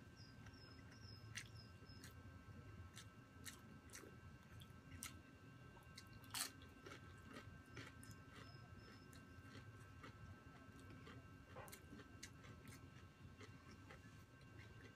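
A person chewing food close to the microphone, with scattered crisp crunches and mouth clicks, the loudest about six seconds in.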